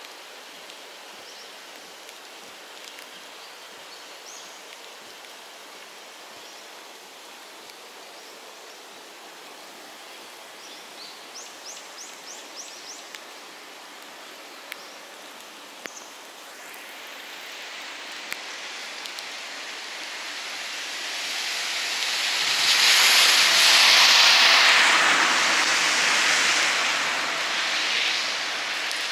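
Steady outdoor hiss of light rain, then a Chuo Main Line train crossing the steel deck-truss girder bridge overhead. Its noise builds from a little past halfway, is loudest a few seconds later with a low hum under it, and eases slightly near the end.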